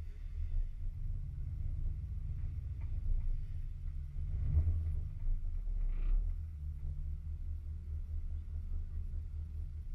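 Off-road vehicle's engine running at low revs, a low steady rumble, swelling briefly louder about halfway through.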